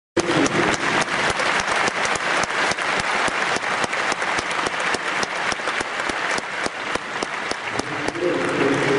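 Audience applauding; the clapping thins out near the end.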